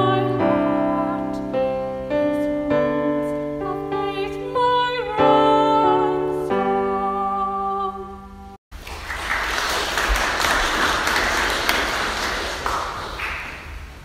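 The final line of a hymn sung by a solo voice with vibrato over piano chords; about eight and a half seconds in the music cuts off suddenly. A steady, rough hiss of recording noise follows.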